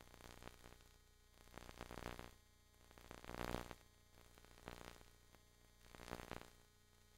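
Near silence: faint static hiss that swells and fades about every second and a half.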